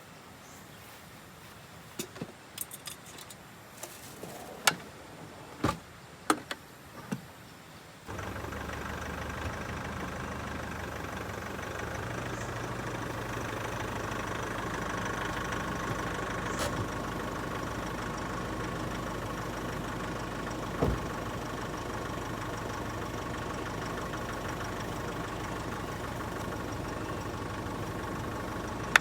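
A handful of sharp clicks and knocks, then from about eight seconds in a vehicle engine runs steadily at idle.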